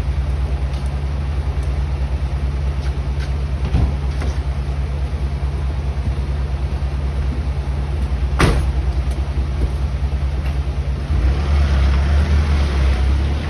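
Backhoe's diesel engine running steadily, with a few light clicks and one sharp clank a little past halfway. In the last couple of seconds the engine works harder and louder, with a rush of noise over it.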